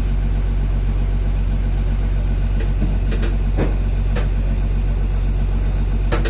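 A vehicle engine idling with a steady low hum, with a few light clicks around the middle.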